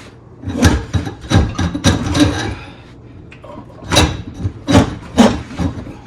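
Irregular knocks and clatter of tools and parts being handled at a kitchen sink. There are several sharp strikes in the first couple of seconds, a short lull, then three more.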